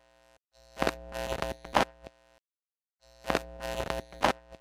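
Electronic logo-sting sound effect: a short burst of sharp pops and glitchy clicks over held synthetic tones. It plays twice, with brief silent gaps between.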